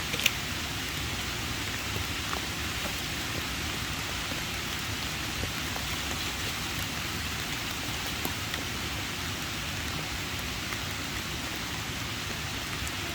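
Steady rain falling, with scattered drops ticking close by and one sharper tap just after the start.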